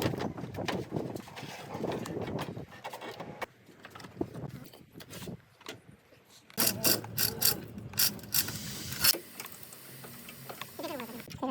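Mechanical clicking and rattling from hand work on a vehicle, with a run of sharp clicks in the second half.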